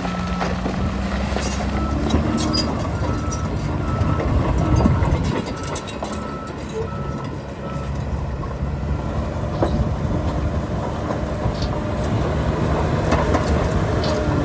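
Heavy earthmoving machinery running at a rock-fill site: big diesel engines working steadily, with scattered clanks and knocks. Through the first half a reversing alarm beeps about twice a second.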